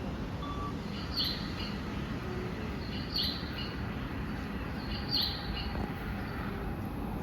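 Electronic bird-call guidance chime of a Japanese station, sounding three short, identical chirps evenly about two seconds apart, over a steady low rumble of platform noise.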